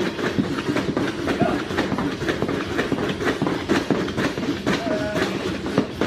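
Battle ropes and a jump rope slapping a gym mat in a fast, steady, rhythmic clatter.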